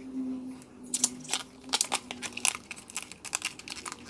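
Bracts of a kepok banana blossom being peeled and torn off by hand: an irregular run of crisp crackling tears and snaps.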